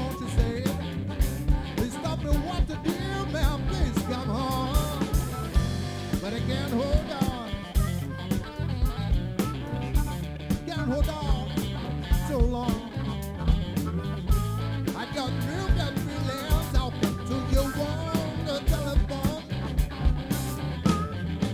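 Live blues-rock band playing an instrumental passage of the song: a lead guitar playing bending notes over bass and a steady drum beat.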